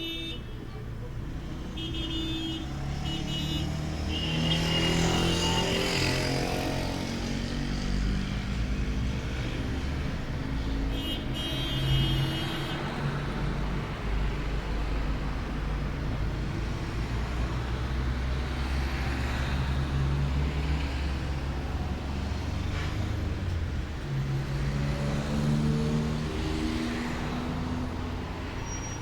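Road traffic: vehicle engines running past, with two passes whose engine note sweeps, one a few seconds in and one near the end. Short high-pitched tones sound twice, about two seconds in and about eleven seconds in.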